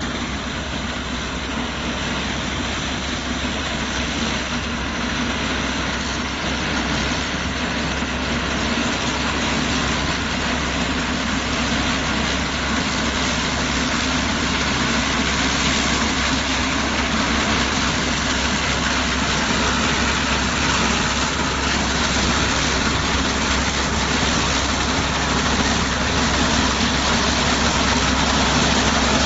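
Engine of a small single-cylinder tractor running steadily, driving a corn harvester, under a dense mechanical noise that slowly grows louder.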